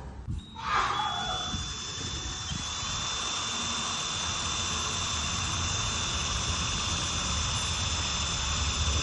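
Electric drill starting up about a second in and then running steadily with a high whine.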